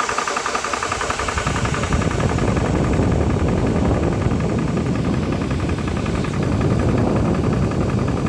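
Nomad II 4500 PSI portable high-pressure compressor running under load with a fast, even pulsing, pumping air into a PCP air rifle's reservoir on its way to 3000 PSI. About a second in, a deeper low rumble joins and holds steady.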